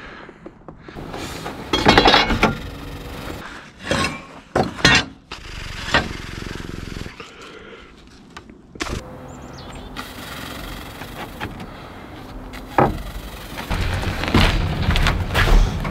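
Wooden boards knocking and clattering as lumber is handled and laid out on a wooden deck: a string of separate knocks, with a burst of clatter about two seconds in and more near the end.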